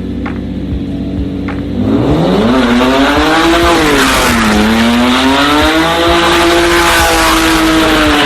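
Lamborghini Countach's V12 engine spinning donuts: it runs low at first, then revs up hard about two seconds in, dips briefly, and is held at high revs, with tyres squealing under it.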